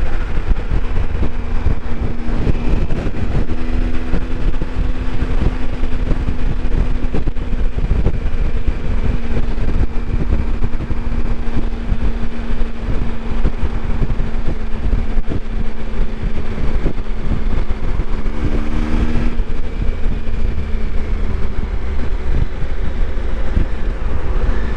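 Motorcycle engine running at a steady road speed, heard over a heavy low rumble, with the engine note shifting briefly twice.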